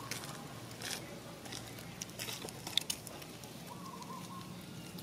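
Long-tailed macaque eating: a few sharp crackling clicks as it bites and handles its food, with a faint wavering squeak about four seconds in.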